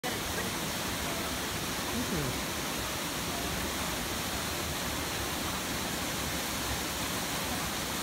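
Waterfall and stream water rushing in a steady, even roar.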